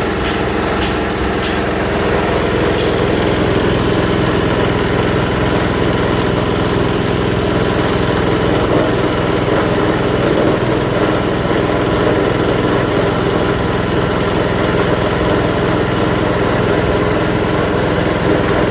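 Coconut husk grinding machine running steadily, with a few sharp ticks in the first couple of seconds; it grows a little louder and rougher from about two seconds in.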